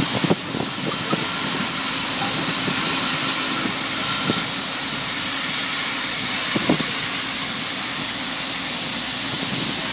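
Pipe-lining rig hissing steadily and loudly as pressurised air or steam escapes from it, with a steady low hum of running machinery underneath.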